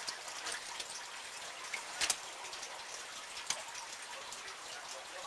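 Water sound: a steady watery hiss with scattered light ticks like drips, and a sharper double click about two seconds in.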